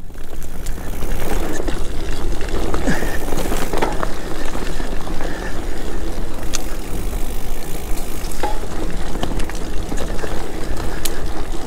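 Mountain bike rolling along a dirt singletrack: a steady rush of tyre and wind noise, with the bike rattling and scattered sharp clicks.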